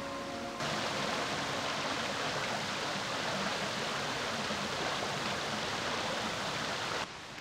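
Steady rushing of a small woodland stream. It starts abruptly after a moment of background music and cuts off near the end.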